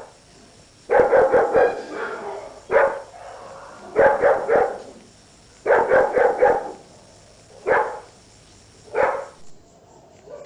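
A dog barking in quick runs of three or four barks, with single barks in between; the last few barks come singly, more spread out.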